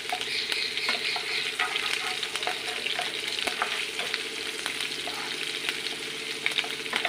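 Chopped green chillies and cumin seeds sizzling in hot oil in a nonstick frying pan, with a wooden spatula scraping and tapping against the pan as they are stirred.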